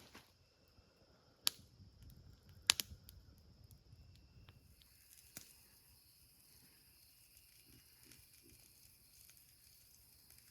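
Faint outdoor ambience: a few sharp clicks or snaps, the loudest about a second and a half and nearly three seconds in, then a steady faint high buzz of insects.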